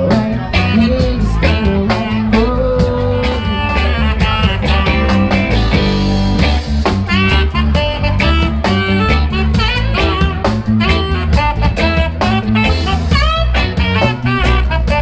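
Live reggae band playing, with bass, electric guitar, drums and saxophone over a steady beat.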